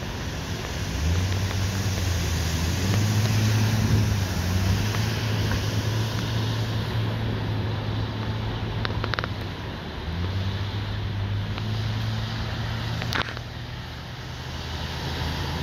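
Cars driving through deep floodwater on a street: engines humming under a steady wash of water and spray from the tyres. The engine hum is strongest in the first several seconds and comes back about two-thirds of the way through, and there is a single sharp click near the end.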